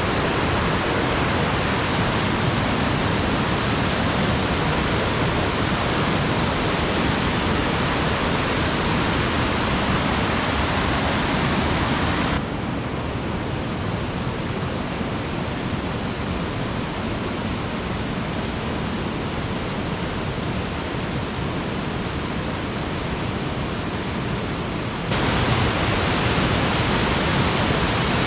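Rushing water, a steady even rush. About twelve seconds in it cuts abruptly to a quieter, duller rush, and near the end it cuts back to the brighter, louder one.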